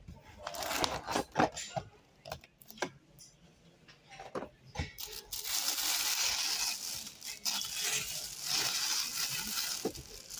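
Hands handling a moulded plastic tray and cardboard box, with scattered clicks and rustles. About five seconds in, a clear plastic bag crinkles continuously as it is gripped and pulled from the box.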